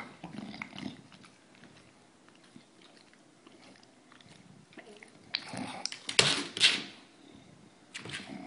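English bulldog sniffing and snorting close up: soft snuffling at first, then a run of loud noisy snorts from about five to seven seconds in and a shorter one near the end.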